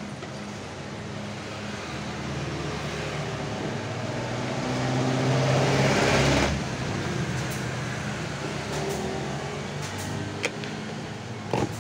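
A motor vehicle's engine running with a steady low hum that builds to its loudest about six seconds in, then drops off sharply. A few sharp clicks follow near the end.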